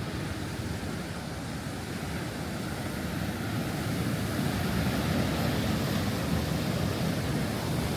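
Rough surf breaking on the beach under strong wind, with wind buffeting the microphone: a steady low rush that swells a little louder in the second half.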